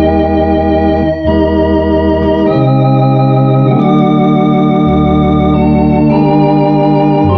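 Two-manual Grace electronic organ playing a slow hymn in sustained chords over held bass notes, the chords changing every second or so, with a gentle vibrato.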